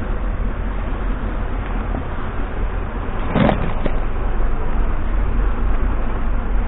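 Steady low rumble of a large motor yacht's engines running at low speed as it turns, over the lap of choppy water. A short sharp knock comes about three and a half seconds in, with a smaller one just after.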